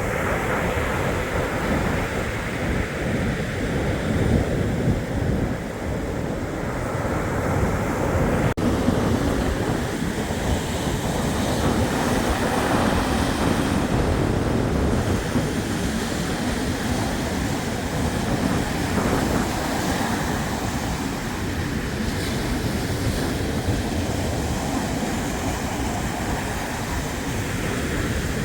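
Black Sea surf breaking and washing on the shore, with wind rumbling on the microphone.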